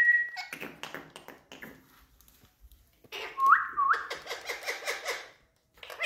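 Indian ringneck parakeets whistling and chattering: a short steady whistle at the start, busy chatter, then two quick rising whistles about three and a half seconds in, amid more chattering.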